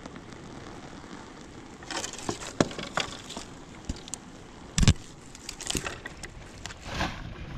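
Irregular crunches, cracks and knocks over a steady rushing noise, the loudest a heavy thump nearly five seconds in.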